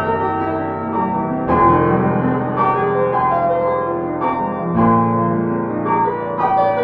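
Piano music: chords and melody notes struck about once a second, with no singing.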